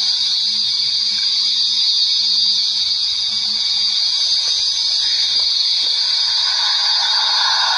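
Ambient background music: a steady high-pitched drone with a faint low hum beneath it.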